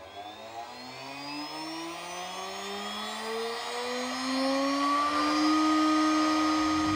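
1.5 kW Chinese CNC router spindle motor spinning up: a whine rising steadily in pitch and loudness for about five and a half seconds, then holding steady at running speed.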